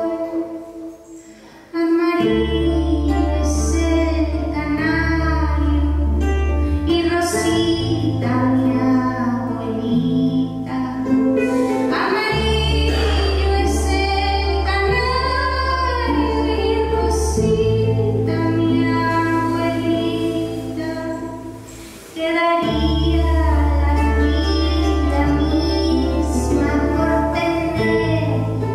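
Live acoustic band music: a woman sings the lead over strummed ukuleles and long, deep bass notes that step from one pitch to the next. The band drops out briefly twice, about a second and a half in and again near the end, and comes back in at full level each time.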